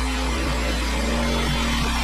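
Small petrol engine of a Frontier OS27 portable bandsaw mill running steadily while the sawhead is pushed along and the band blade cuts through a log.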